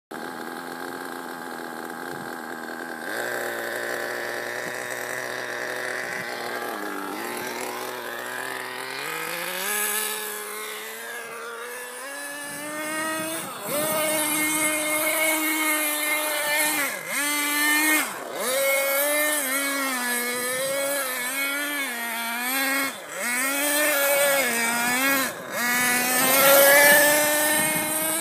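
ZX21 .21 two-stroke nitro engine of a Bycmo Serie Seven 1/7-scale RC car, running on 25% nitro fuel. It idles steadily at first, climbs in pitch about ten seconds in, then is revved up and down over and over as the car drives, each blip a quick dip and rise in pitch.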